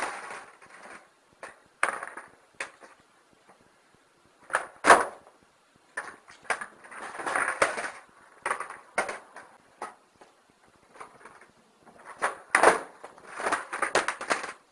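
Skateboard on wet concrete paving slabs: sharp clacks of the tail popping and the board landing and slapping down, a dozen or so scattered through, the loudest about five seconds in and near the end. Between the clacks come shorter stretches of rough noise from the board and wheels on the ground.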